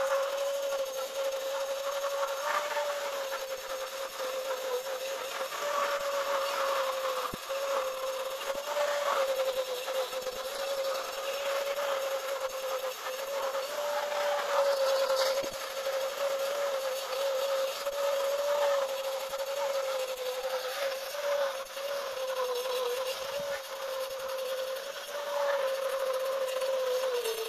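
Handheld angle grinder cutting grooves into a row of red clay bricks: a steady motor whine with gritty grinding noise over it that swells and fades as the disc is pushed along the bricks.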